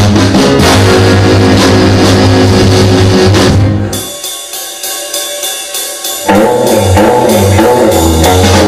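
Rock and roll record playing: drum kit, bass and electric guitar with a steady beat. About four seconds in, the band drops away to a thinner, quieter sound for about two seconds, then the full band comes back in with a strong beat.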